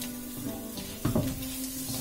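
Spatula stirring and scraping crab pieces in a frying pan, with a light sizzle and the loudest knocks about a second in.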